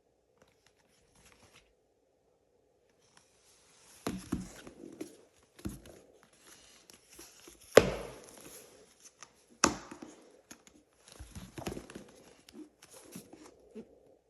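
Box and packaging being handled and opened by hand: rustling, scraping and tearing with scattered knocks, starting about four seconds in, with two sharp knocks about two seconds apart near the middle as the loudest.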